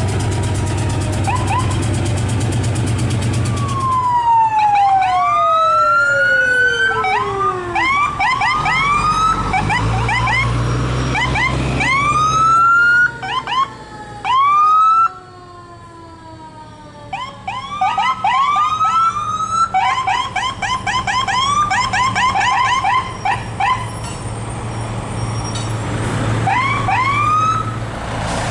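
Several fire truck sirens sounding together over the low rumble of truck engines. There are many quick rising whoops, often overlapping, and a long falling wail about four seconds in. The sound drops away suddenly about halfway through, then the whoops start again.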